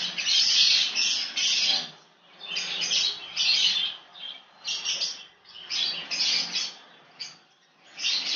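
Ratchet wrench clicking in rapid runs about a second long, with short pauses between strokes, as a motorcycle engine-mount bolt is driven in.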